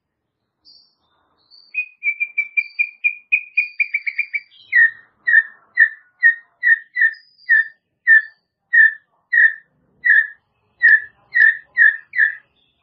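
White-rumped shama (murai batu) singing. A few faint high whistles come first, then a quick run of short repeated notes that speeds up. After that comes a slower series of about fifteen louder, lower notes, roughly two a second.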